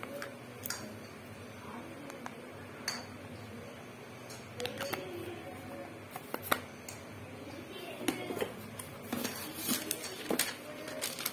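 Handling noise from a plastic cream jar turned over in the hands, with scattered sharp clicks and taps. Near the end these give way to a denser cluster of crackles as a paper invoice is handled.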